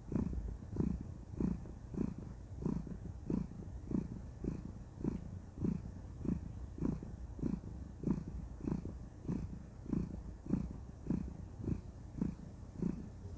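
Domestic cat purring steadily, a continuous low rumble that swells in an even rhythm of a little under two pulses a second as she breathes in and out: the purr of a content cat.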